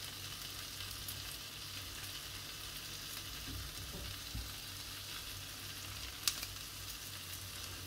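Sliced peppers and onion sizzling gently in a frying pan over low heat, a steady quiet hiss, with one sharp click a little after six seconds in.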